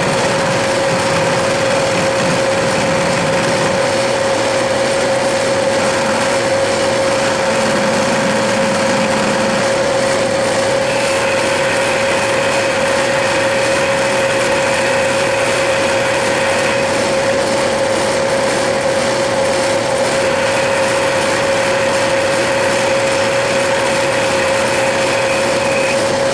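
Metal lathe running under power feed while turning a step on aluminium bar stock, a steady mechanical whirr of the drive and gearing with a constant mid-pitched whine.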